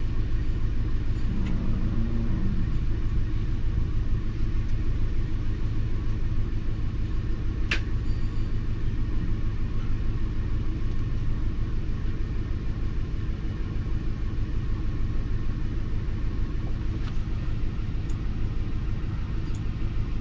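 Lincoln MKT's V6 idling with a steady rumble while misfiring on cylinder 5, a cylinder that is not contributing at all. A single sharp click about eight seconds in.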